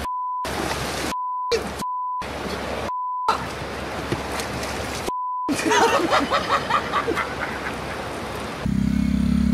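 Censor bleeps: a steady single-pitch beep blanks out swearing five times in quick succession, with splashing and running river water between them, then excited voices. Near the end a steady engine hum cuts in.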